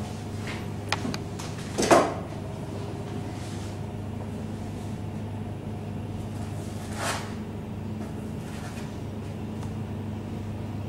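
Steady electrical mains hum, with a few light clicks about a second in, one louder knock just before two seconds, and a soft rustle around seven seconds.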